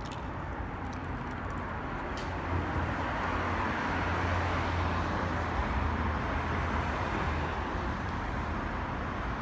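Road traffic noise: a steady rush of passing vehicles over a low rumble, swelling slightly in the first few seconds and then holding.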